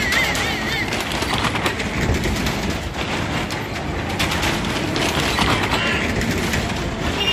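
Cars circling the vertical wooden wall of a well of death: steady engine noise and the rumble of tyres running over the planks. A short warbling tone sounds at the very start.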